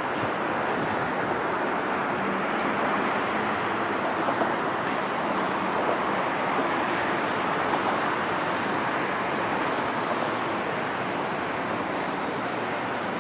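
Steady city traffic noise: a continuous wash of road noise with no distinct events.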